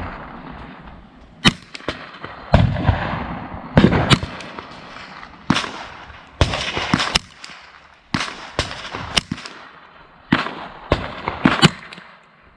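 AR-15 rifle firing .223/5.56 rounds, about fifteen shots at uneven spacing, each with a short echo trail.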